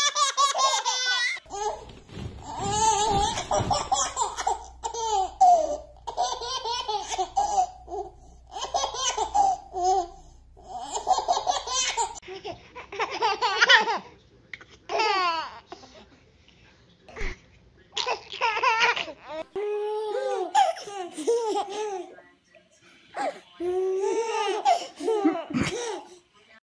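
Babies laughing in repeated fits, several babies in turn, with short pauses between the fits.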